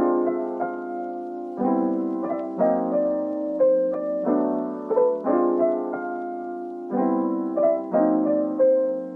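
Background music: a soft piano melody over repeating chords, about one chord change every second or so.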